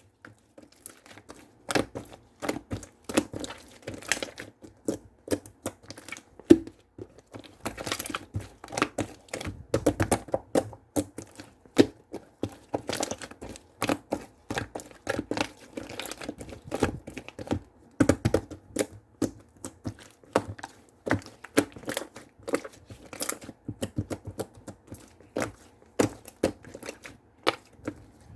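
Slime being played with by hand, giving irregular sticky pops and crackles, several a second with short pauses.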